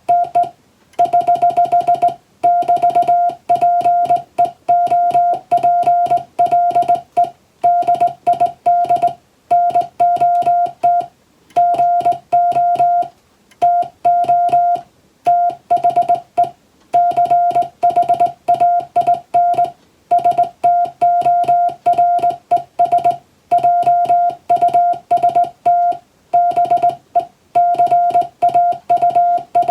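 Morse code (CW) as a single steady beeping tone keyed rapidly into dots and dashes, in bunched groups with brief pauses between words: English-language Morse code practice text.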